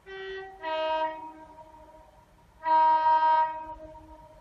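Two-tone horn of an approaching train: a short low note straight into a higher note, then a louder, longer blast about a second and a half later.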